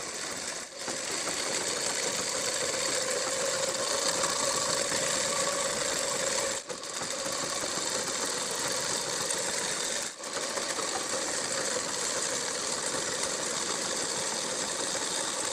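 Sewing machine running steadily as a seam is stitched to join fabric panels, stopping for a moment three times.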